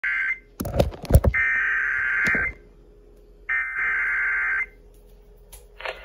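A weather radio's speaker sending the digital SAME header of an Emergency Alert System warning: harsh, buzzy data bursts about a second long, three of them with pauses of about a second between. Sharp knocks of handling come in between the first two bursts.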